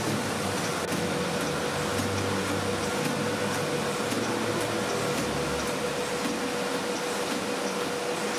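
Paper straw making machine running: a steady mechanical whir with a constant hum and faint, evenly spaced ticks.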